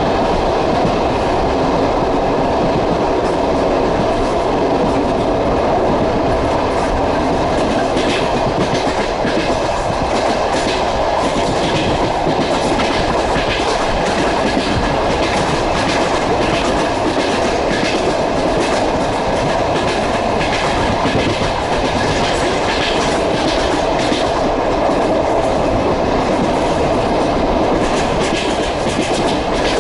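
Passenger train running, its wheels clattering over the rail joints: a steady rumble with a stream of irregular clicks that grow thicker about a quarter of the way in.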